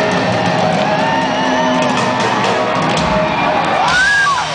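Live hard rock band playing, heard from the crowd: electric guitar holding wavering notes over drums, with a high note that rises and falls near the end.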